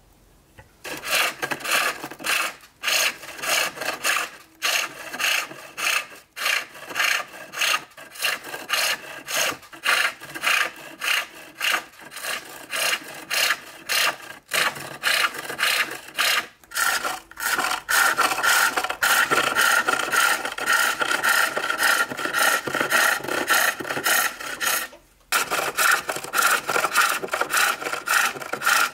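A hook tool shaving a wooden bowl on a foot-powered pole lathe: a scraping cut with each back-and-forth stroke, two or three a second in an even rhythm. About two-thirds of the way through, the cuts take on a higher ringing note, with a short break a few seconds before the end.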